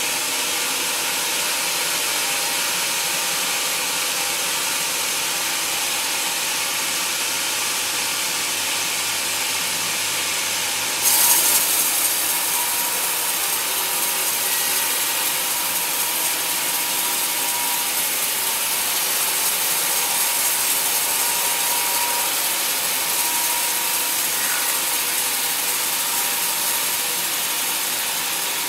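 Sawmill band saw blade cutting lengthwise through a teak log: a steady, dense sawing hiss that gets louder and brighter about eleven seconds in and holds there.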